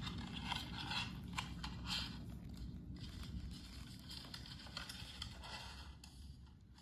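Irregular rustling and scraping of something being handled, a rapid uneven run of scratchy strokes that fades toward the end.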